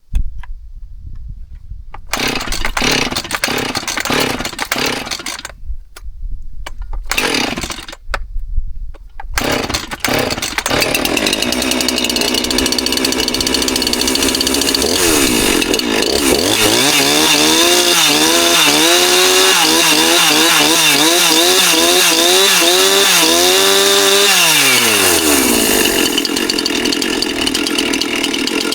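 Husqvarna 345 two-stroke chainsaw starting up: it sputters and cuts out twice in the first several seconds, catches at about ten seconds, then runs with the throttle worked up and down over and over before settling into a steady run. The owner judges it needs a little tune-up.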